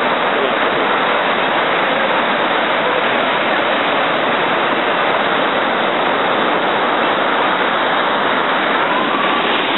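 Ocean surf breaking and washing through shallow water: a loud, steady rush of water noise with no letup.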